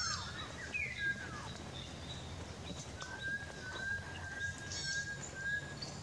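Birds calling in forest: a few short falling whistles about a second in, then a long string of whistled notes held on one pitch from about three seconds in to near the end, with thin high notes over a low background rumble.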